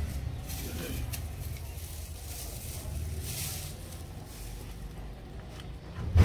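Faint rustles of a plastic bag and a light click as a car painter handles his materials and picks up a can of paint hardener, over a steady low background rumble.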